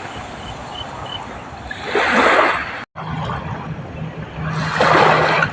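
Waves washing in: two swells of rushing water about three seconds apart. A few faint high chirps come near the start, and a low steady hum runs through the second half.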